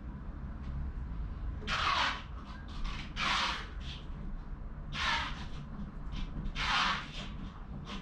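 A crow cawing four times, short harsh caws about a second and a half apart, with a few faint ticks in between.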